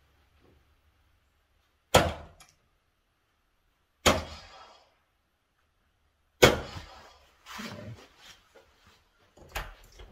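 Three soft-tip darts (Target Paul Lim Gen 4, 20 g tungsten) striking a Gran Board 3s electronic dartboard one after another, a sharp thud about every two seconds. Near the end come lighter clicks as the darts are pulled out of the board's plastic segments.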